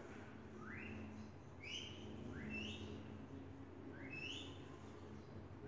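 A bird calling faintly: a series of short whistled notes, each rising quickly in pitch, about one a second.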